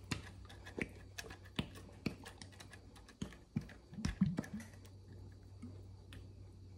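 Thick garlic Parmesan sauce glugging and plopping from an upturned, shaken bottle onto dry uncooked rotini pasta: faint scattered clicks and soft squelches that thin out after about five seconds, over a steady low hum.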